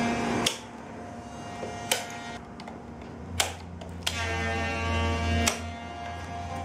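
Hand pruning shears snipping through willow rods, five sharp snaps about a second or so apart, over a steady humming background.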